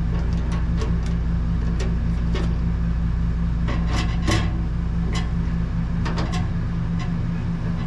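Scattered light metallic clicks and taps of tools working A/C hose fittings as they are tightened down, over a steady low hum.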